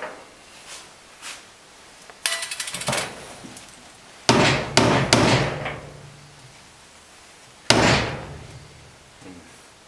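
Steel tools and parts knocking and clattering against a metal injector clamping stand and workbench as they are handled: a quick rattle of clicks a couple of seconds in, a cluster of loud knocks in the middle, and one sharp knock late on.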